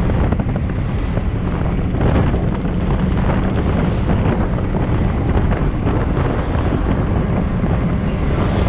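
Wind rumbling on the microphone of a bonnet-mounted camera on a moving car, with the car's engine and road noise underneath.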